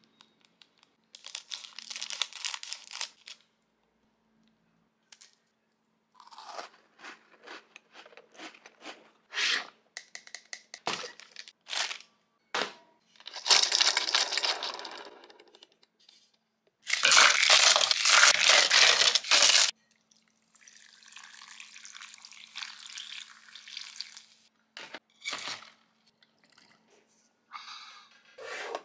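Close-miked plastic packaging being handled: a biscuit's crimped plastic wrapper crinkling, then several bursts of loud crinkling and rustling as a plastic drinking cup is unwrapped, with scattered clicks and taps of hard plastic. The loudest crinkling comes a little past the middle.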